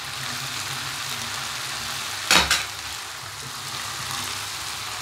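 Macaroni and vegetables sizzling in a hot frying pan while being stirred with a silicone spatula, a steady hiss with one sharp knock about halfway through.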